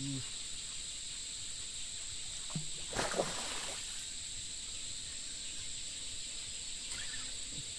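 A hooked patin (pangasius catfish) splashes at the water surface once, a short sudden splash about three seconds in, over a steady high insect buzz.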